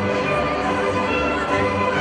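Orchestral music playing for a stage dance, with held notes over a steady low pulse.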